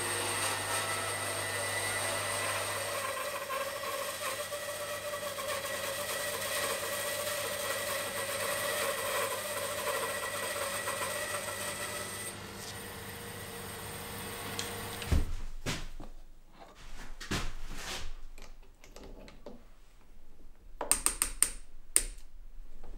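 Bandsaw running and cutting through a wooden block: a steady whirring hiss that stops abruptly about fifteen seconds in. After that come a few scattered knocks from handling, and a quick run of sharp clicks near the end as a cordless drill/driver is handled.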